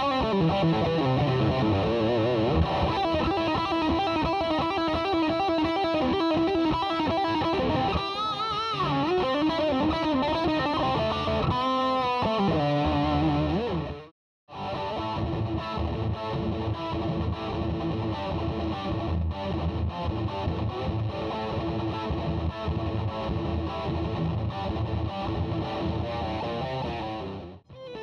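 Distorted electric guitar playing lead lines, with wavering vibrato and bent notes in the middle stretch. The sound cuts out completely for a split second about halfway through, then the playing resumes.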